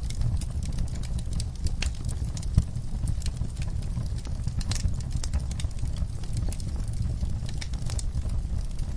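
Wood fire in a fireplace crackling: irregular small pops and snaps over a low steady rumble, with one louder pop about two and a half seconds in.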